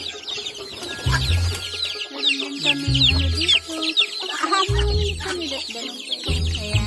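A brood of young chicks peeping continuously, many short falling cheeps overlapping one another. Background music with a low, repeating beat plays under them.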